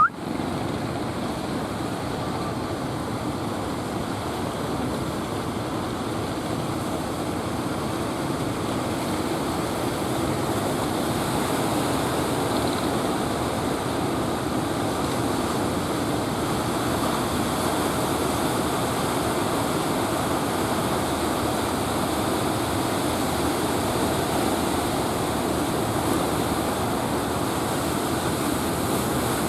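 Ocean surf washing onto the beach: a steady, unbroken rushing of breaking waves, with a brief sharp click right at the start.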